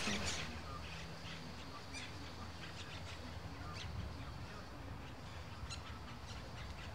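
Quiet park ambience: a faint steady low hum with scattered short, faint bird calls.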